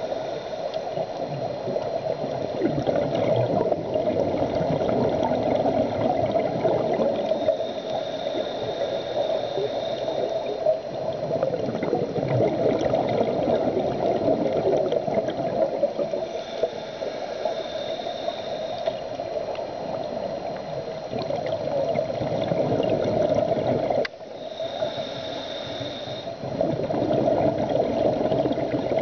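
Scuba regulator breathing heard underwater through a camera housing: a muffled bubbling rush that swells and eases every few seconds as exhaled bubbles stream out, with a thin high whistle coming and going between the swells.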